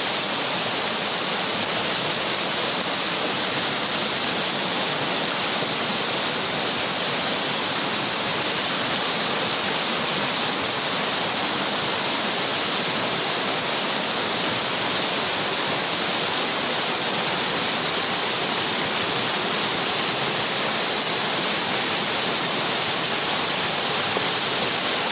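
Steady rush of flash-flood water flowing.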